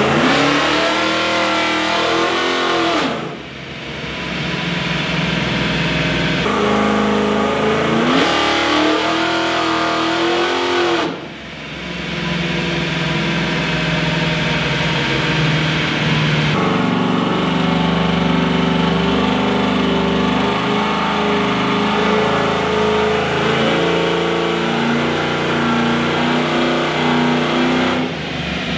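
Chevrolet 1500 pickup's engine being run on a chassis dynamometer, its rear tyres turning the rollers. The revs rise and fall back twice in the first dozen seconds, each time dropping off sharply, then the engine runs at steadier revs that change pitch in steps.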